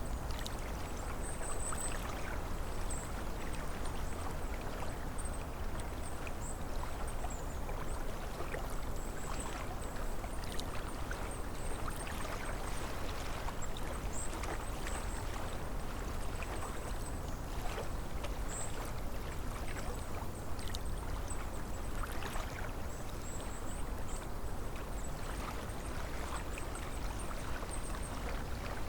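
Small waves lapping and splashing against a lakeshore in a steady stream of little splashes, with wind blowing over the water.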